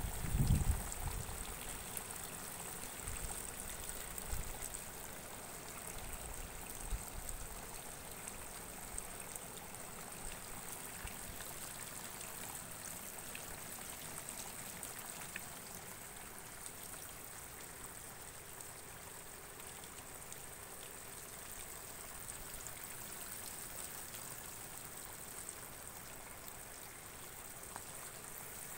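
Steady outdoor background hiss with a constant thin high-pitched whine over it, and low buffeting on the microphone in the first second and again briefly about seven seconds in.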